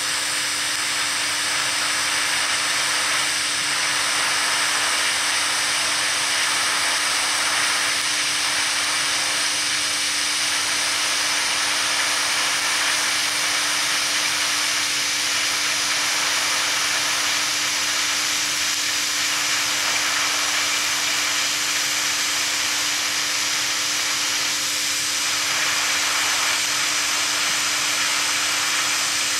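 Vevor 210A TIG welder arc hissing steadily while a bead is laid on steel plate and filler rod is fed in, with a faint steady hum underneath.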